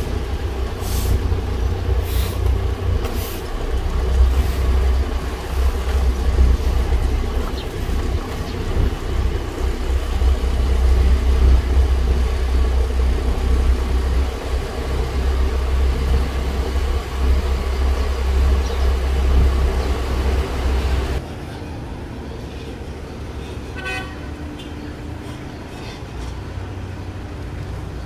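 A large vehicle's engine rumbling heavily, with a few short sharp sounds in the first seconds. About 21 seconds in it cuts off suddenly to quieter traffic noise, with a short run of quick beeps shortly after.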